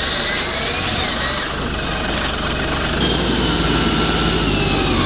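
Tractor engine running under changing revs. A whine rises in pitch during the first second, and another slowly falls from about three seconds in.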